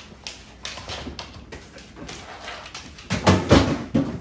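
A Belgian Malinois tugging open a refrigerator door and rummaging inside, with light clicks and rattles. A cluster of loud knocks and clatter comes about three seconds in.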